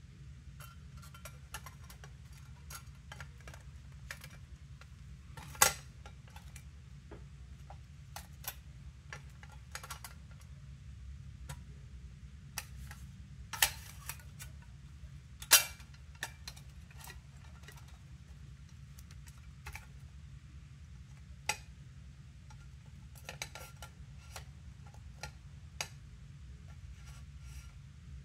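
Light clicks and clinks of an aluminium radio enclosure and its metal end plate being handled and fitted together, with three sharper knocks standing out, over a faint low steady hum.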